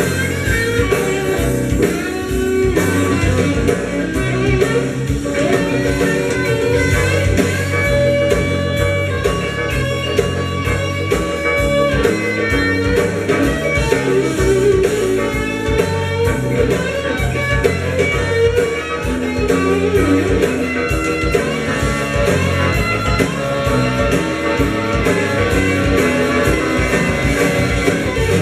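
A rock and roll record playing, with guitar over a steady beat.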